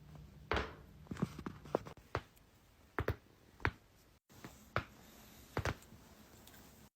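Joints cracking during chiropractic neck adjustments: a scattered series of about nine sharp single pops, some in quick runs of two or three.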